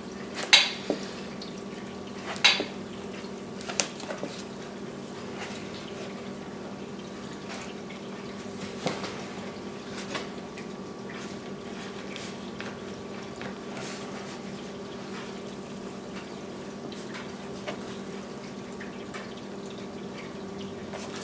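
Scattered sharp taps and crinkles of hands working an adhesive vinyl graphic onto a plastic motocross shroud, the loudest a little after the start and at about two and a half seconds, over a steady hum.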